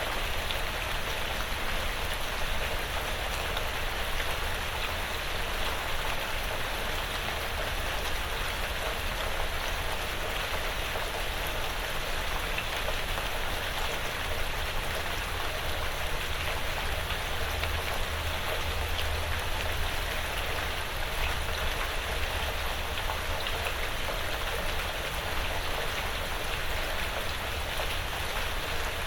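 Quiet rain falling steadily on a porch roof and the surrounding woods: an even, dense patter of drops.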